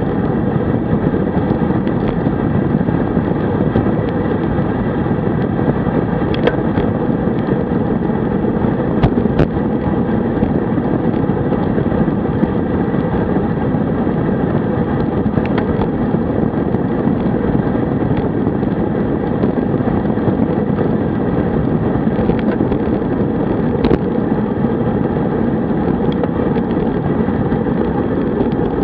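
Steady rush of wind over the microphone and road-bike tyres rolling on asphalt at speed, with a few brief clicks.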